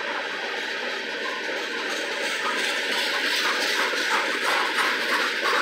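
Freight train tank cars rolling past at close range: a steady rumble of steel wheels on rail, with a rhythmic clatter of wheels that grows clearer and slightly louder in the second half.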